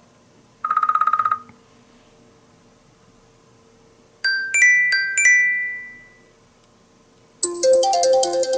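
iPhone (iOS 14) ringtones and alert tones played one after another: a short buzzing electronic trill, then a quick chime of four bell-like notes that ring away, then a new many-note ringtone melody starting near the end.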